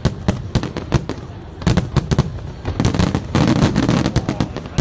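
Aerial fireworks shells bursting in quick succession: many sharp bangs and reports, coming in dense clusters about a second and a half in and again through the second half.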